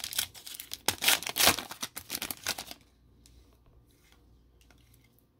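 Wrapper of a trading-card pack being torn open and crinkled by hand: a quick run of crackling rips, loudest about a second in, stopping after about three seconds. Then only faint soft rustles as the cards are handled.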